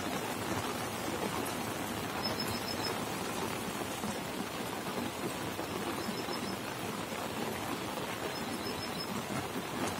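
Steady rain falling: an even, continuous hiss.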